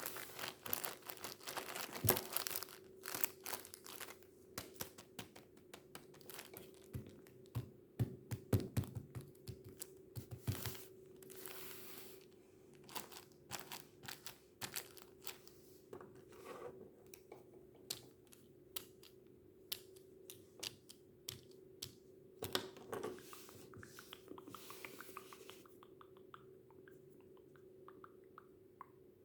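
Tissues crinkled and rustled close to the microphone, giving many sharp clicks and pops with a few longer crinkling swishes, growing sparse near the end. A faint steady hum sits underneath.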